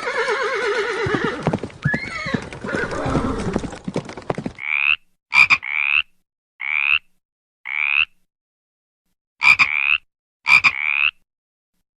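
A horse neighing: one long, wavering whinny. From about four and a half seconds in it gives way to about six short, high, croaking calls, with a few sharp clicks among them.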